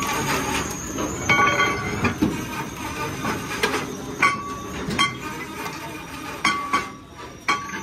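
Steel truck wheel rim plate clanking and ringing as it is turned and struck on a press, about five sharp metallic clanks, each with a short ringing tone, over the steady running noise of the machine.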